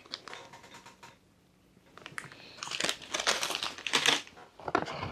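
Foil food pouches crinkling as they are handled and set down on a table, faint at first and louder in the second half.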